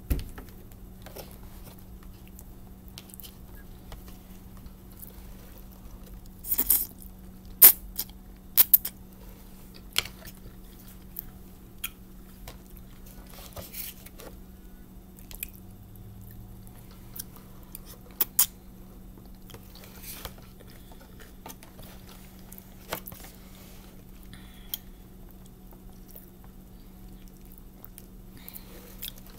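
Eating sounds: a metal fork clicking and scraping in a plastic bowl of spaghetti, with wet chewing between the clicks, over a steady low hum.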